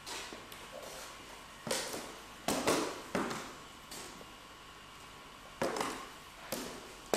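Footsteps on wooden floorboards, several irregular steps with a short echo after each, over a steady hiss and a faint high hum.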